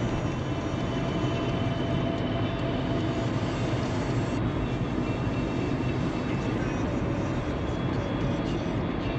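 A vehicle on the move: a steady low rumble of engine and road noise with no change in pace.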